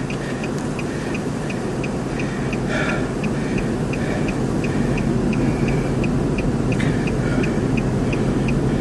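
Steady wind and rumble noise over a vehicle running at idle, with a short high beep repeating about three times a second, like a car's warning chime.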